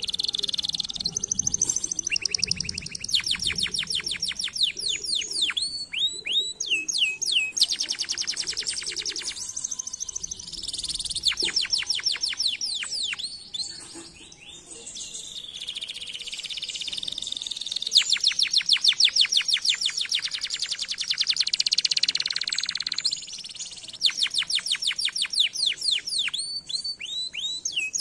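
Domestic canary singing a long song of fast trills, each a run of rapidly repeated notes. The runs change speed and pitch one after another, with a few falling swoops and only short breaks between phrases.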